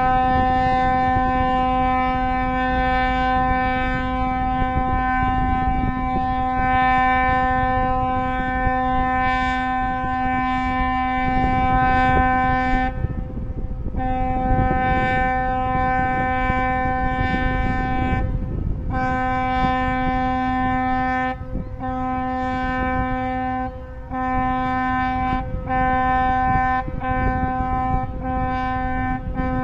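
Ship's horn of the river cruise ship Mustai Karim sounding: one long, steady blast of about thirteen seconds, then a string of shorter blasts, each cut off by a brief break, over a steady low rumble.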